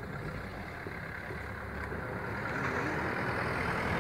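A motor vehicle engine runs with a low, rapidly pulsing rumble that grows louder in the second half.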